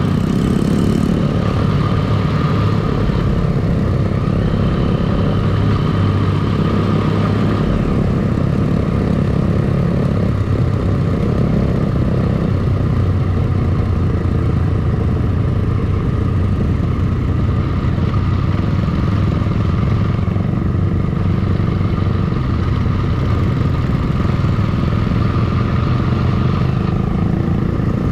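Motorcycle engines running steadily at cruising speed as a column of cruiser and touring bikes rides together, a continuous drone with no revving.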